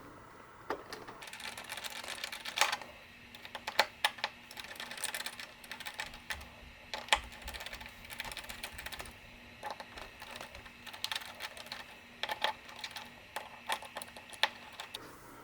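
Small screws being driven by hand into the top of an aluminium switch opener: irregular light metallic clicks and ticks from the screwdriver and parts.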